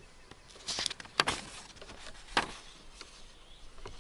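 Sheets of paper on a lectern being handled and turned close to the microphone: a few short, sharp rustles about a second in, the loudest among them, and another near two and a half seconds.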